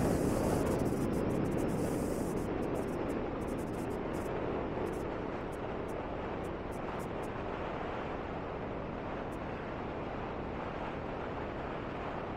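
Road and wind noise of a moving car heard from inside the cabin, a steady rushing that eases off over the first few seconds and then holds even.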